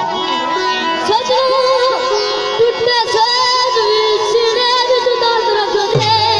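A boy singing Pothwari verse (shairkhwani) through a microphone and PA, holding long wavering, ornamented notes, with a hand drum striking now and then.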